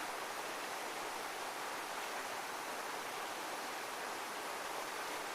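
Heavy waterfall: a steady, even rush of falling water with no swells or breaks.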